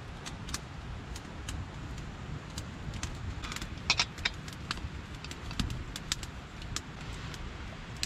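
Small metal clicks and clinks as a folding backpacking burner is opened and screwed onto a gas canister, with scattered crackles from a wood-stove fire. A low, steady rumble runs underneath.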